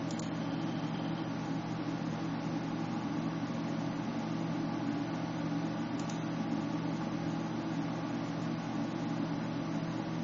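Steady hum and hiss of background noise with low even tones, with no speech, and faint clicks near the start and about six seconds in.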